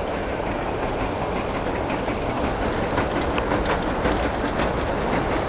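Jubilee line Underground train running in the station: a steady rumble, with rapid clicking of wheels over the rails from about two seconds in.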